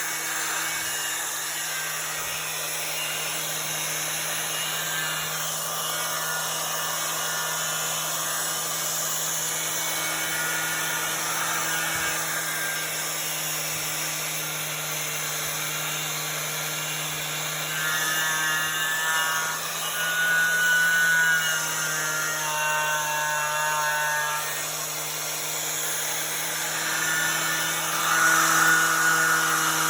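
Milwaukee 11-amp 4½-inch angle grinder running steadily with a twisted-knot wire wheel, stripping paint and rust. It has an even motor hum and a shifting higher whine that grows louder about two-thirds of the way through and again near the end.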